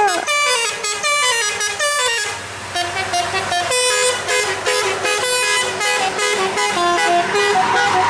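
Tour bus's multi-tone musical air horn ('telolet') playing a fast tune of short, stepped notes, with a short break about two seconds in. The bus's engine hums underneath, and road noise swells near the end as the bus passes close.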